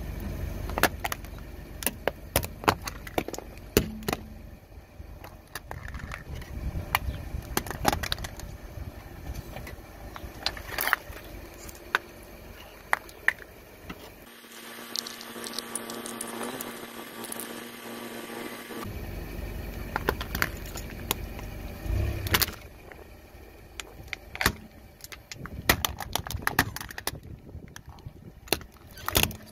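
A car rolling slowly over objects, with repeated sharp cracks and snaps of things breaking under the tyre over the car's low rumble. The low rumble drops out for a few seconds in the middle.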